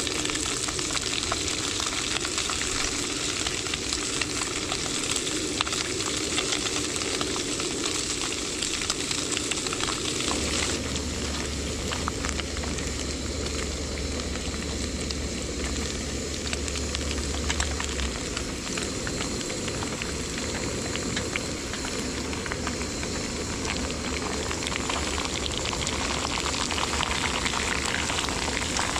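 Pork pieces frying in oil in a pan on a portable butane gas stove: a steady sizzle with fine crackles as the fat renders out.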